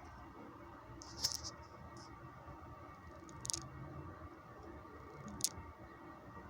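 Faint handling noise: three brief, light high-pitched scrapes or clicks about two seconds apart, over a low steady hum.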